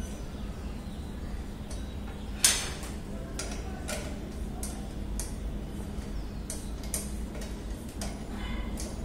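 Metal clicks from a satellite dish's steel mounting bracket being handled and its bolts and fittings worked: one sharp clink about two and a half seconds in, then lighter clicks roughly every half second to a second, over a steady low hum.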